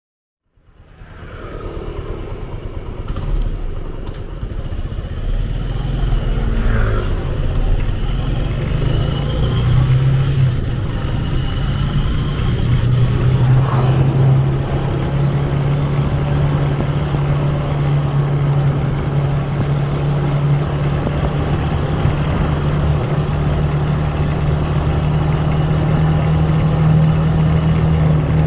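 Small motorcycle's engine running as it is ridden at about 30 to 40 km/h, with wind noise on the microphone. The sound fades in over the first two seconds, and the engine note climbs a few times in the first half before holding steady.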